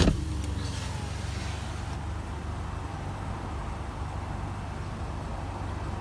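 A short click right at the start, then steady road and engine noise inside a moving car's cabin.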